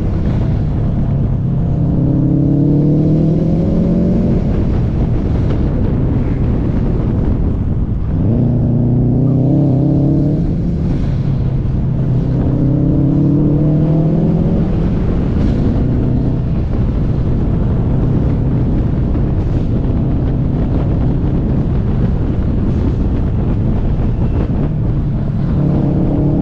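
Car engine pulling hard on a winding mountain road: its pitch climbs in several long pulls and falls away between them, over a constant low road and wind rumble.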